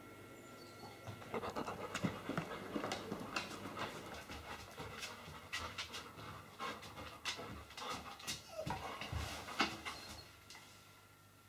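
Yellow Labrador retriever panting in quick, irregular breaths, which stop shortly before the end.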